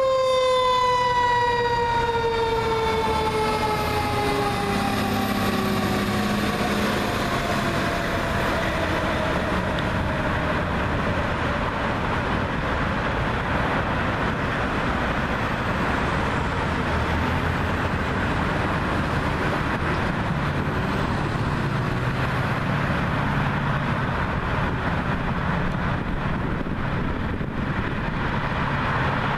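Fire engine's mechanical siren winding down in one long falling wail that fades out over the first several seconds, followed by steady city traffic noise with the rumble of engines.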